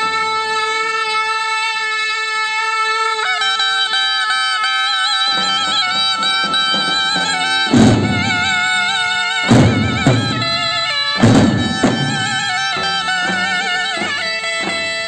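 Zurnas playing a shrill, sustained folk melody in unison. Davul bass drums come in about five seconds in, with a few loud strikes around the middle.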